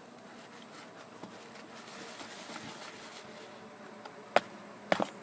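Slime being stirred in a bowl: quiet wet mixing, with a few sharp clicks near the end as the utensil knocks against the bowl.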